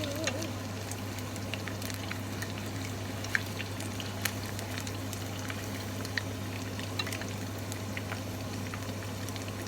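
Karaage, flour-coated chicken pieces, frying in hot oil: a steady sizzle with scattered irregular pops and crackles.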